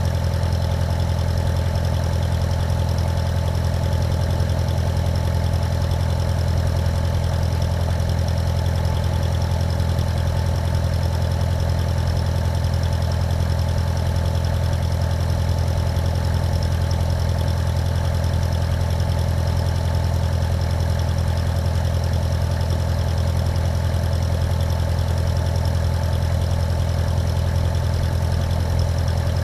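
Cessna 150's four-cylinder Continental O-200 engine and propeller running steadily at low power: a constant deep drone that stays at one pitch throughout.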